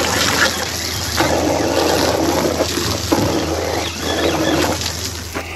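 Water sloshing and trickling over a low steady hum, swelling louder now and then.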